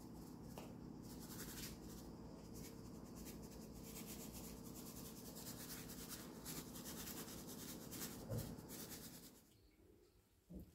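Plastic bag of grated coconut rustling and crinkling as it is shaken out over a dish, a quick run of scratchy rustles over a steady low hum, stopping near the end.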